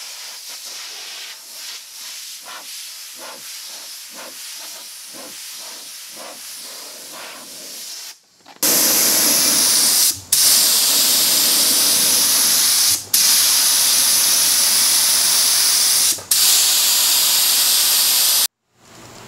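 A softer hiss of air with faint pulses for about the first eight seconds, then a gravity-feed spray gun on an air hose spraying a coat of sealer onto a wooden tabletop: a loud steady hiss, broken off briefly three times.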